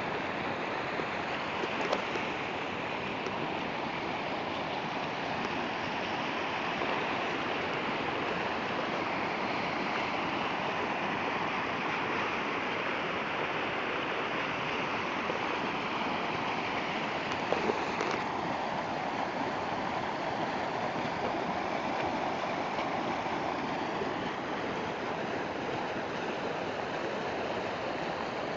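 Floodwater rushing steadily, with a faint click twice.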